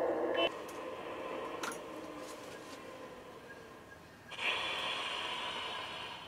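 Garden-scale model shunting locomotive running along the track. A steady sound with several held pitches cuts off about half a second in, and a louder, higher sound sets in suddenly about four and a half seconds in, then fades near the end.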